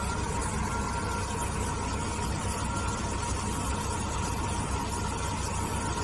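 Diamond wire saw (Dazzini S800EG) running steadily as it cuts marble, a continuous machine hum with a steady whine. A faint high beep, like a vehicle's reversing alarm, sounds on and off a couple of times.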